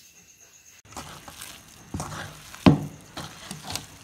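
Hands squeezing and mixing a wet chicken kebab mixture in a steel bowl, starting about a second in. It makes soft squelches and scattered light clicks, with one sharper knock against the bowl about two and a half seconds in.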